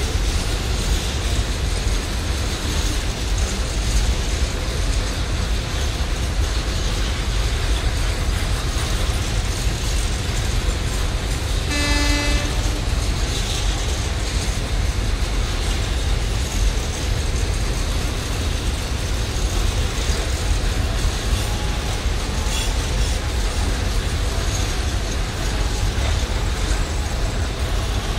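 Empty flat container wagons of a freight train rolling past: a steady, loud rumble of wheels on the rails. A single short horn toot sounds about twelve seconds in.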